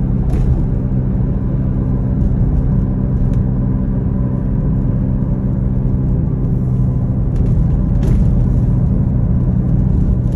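Steady low rumble of a car's engine and road noise heard from inside the cabin while driving, with a steady low hum under it and a couple of faint clicks, one just after the start and one about eight seconds in.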